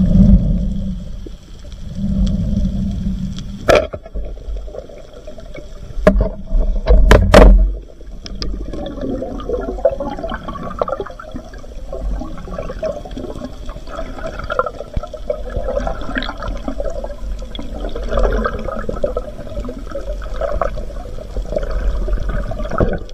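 Underwater water noise from a night spearfishing dive, picked up by the diver's camera: rushing, bubbling water over a low rumble, with a few sharp knocks in the first eight seconds, then a steady dense crackling.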